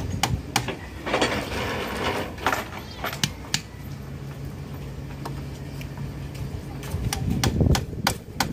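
Scattered sharp knocks and clicks of bamboo slats and sticks being handled and fitted on a small fence, with a rustling stretch about a second in.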